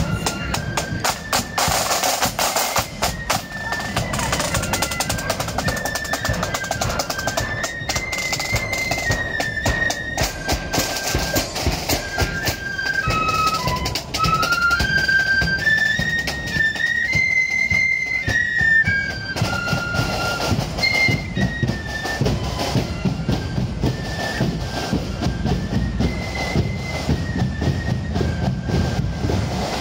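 Marching flute band playing: a stepping flute melody carried over rapid side-drum rolls and beats.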